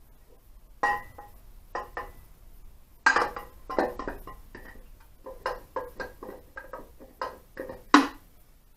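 Aluminium crankcase halves of an Ariel motorcycle engine clinking and knocking together as one half is fitted over the crankshaft onto the other: a dozen or so sharp metal clinks with brief ringing, the loudest near the end.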